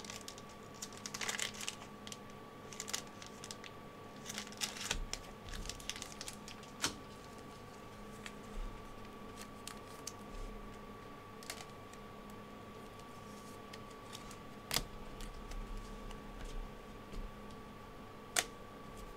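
Panini Mosaic trading cards being handled and flipped through by hand: faint irregular clicks and short rustles of the glossy cards sliding and snapping against each other, with a few sharper single clicks. A faint steady hum runs underneath.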